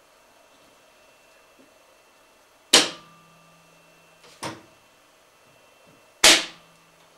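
Three sharp knocks of a PC tower case being tipped and set down hard on a desk, the first and last loudest, each leaving a brief low ring.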